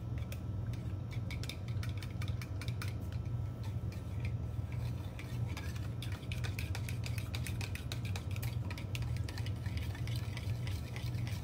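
A small utensil whisking flour into broth in a plastic measuring cup, dissolving it into a thickening slurry: rapid light clicking and scraping against the cup, growing quicker and denser after a few seconds. A steady low hum runs underneath.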